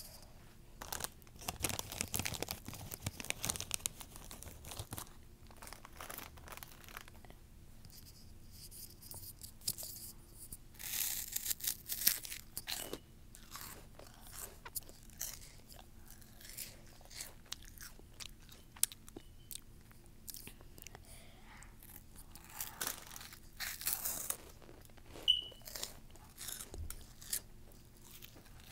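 Crunching and chewing of spicy corn snack chips, in several bouts of crisp crackling: about two seconds in, again around eleven seconds, and again around twenty-three seconds.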